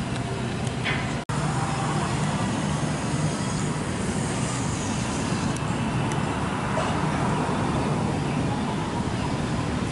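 Steady road traffic noise from passing cars. It cuts out abruptly for an instant about a second in.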